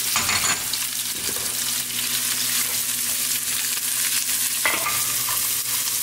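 Sliced onions and green chilies sizzling in hot oil in a non-stick pan, stirred with a spoon that scrapes and knocks against the pan, once just after the start and again near the end.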